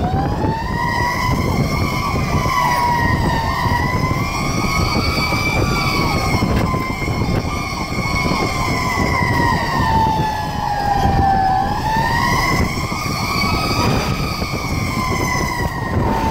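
Fire engine siren wailing, heard from inside the cab of a 2010 Pierce Arrow XT pumper on an emergency run. Its pitch rises and falls slowly and unevenly, over the rumble of the truck's engine and road noise.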